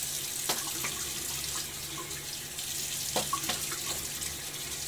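Bathroom sink tap running steadily, with intermittent splashes as he rinses off after the first pass of a shave.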